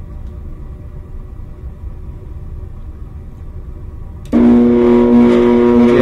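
Defective blower motor of a Rheem 90% gas furnace: a steady low rumble, then about four seconds in a sudden loud, steady electrical hum as the motor is powered up. The motor is drawing high current at startup (about 10 amps) and is judged defective, needing replacement.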